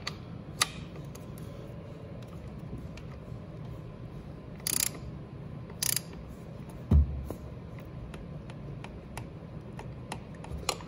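Ratchet on an oil filter socket clicking as a motorcycle's oil filter is worked loose. There are two short runs of ratcheting about five and six seconds in, scattered lighter clicks, and one dull thump about seven seconds in.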